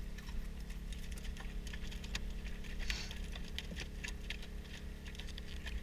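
Steady low drone of a small engine-driven generator running on the boat, with scattered light clicks and taps from gear being handled on board.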